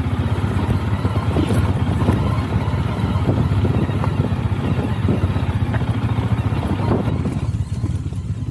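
Bajaj Dominar 400's single-cylinder engine running steadily at low speed, heard from a camera on the moving bike, with occasional short knocks and rattles over a rough track.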